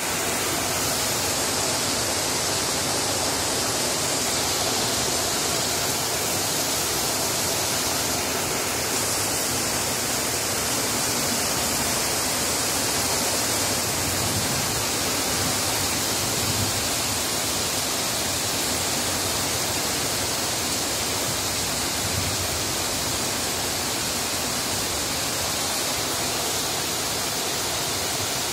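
Heavy rain pouring steadily onto trees and foliage, an even, unbroken hiss.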